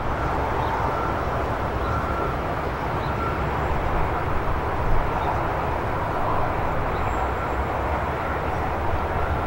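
Steady outdoor city background noise: a low, even rumble of distant traffic with no single event standing out.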